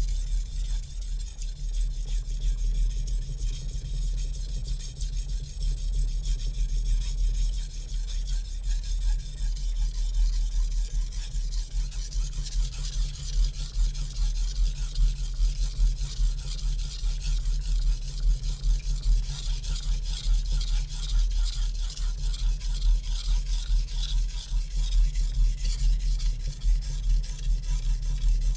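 Steel knife edge scraping back and forth on a 400-grit whetstone in quick push-and-pull strokes, over a steady low hum. The knife is VG-Max steel hardened to 61 Rockwell, still being ground to raise a burr.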